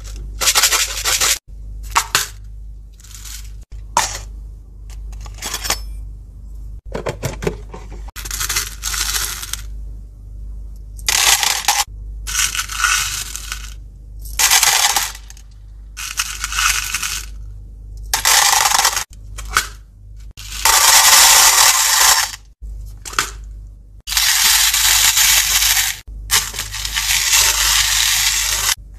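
Small candy-coated chocolates pouring out of plastic tubs into a clear plastic drawer, rattling and clattering against the plastic in a string of separate pours, short ones at first and longer ones lasting a second or two later on. A faint steady low hum runs underneath.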